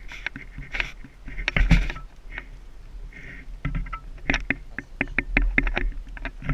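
Metal carabiners and rings clinking and clicking as the paramotor wing's risers are clipped onto the tandem harness, with handling knocks close to the microphone. One loud knock comes a little over a second and a half in, and a quick run of clicks follows in the second half.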